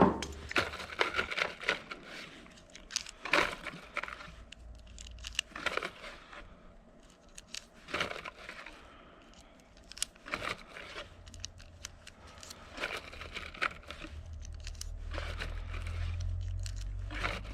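Irregular clicks and scrapes of a pistol magazine and .22 rounds being handled, with a low rumble building in the last few seconds.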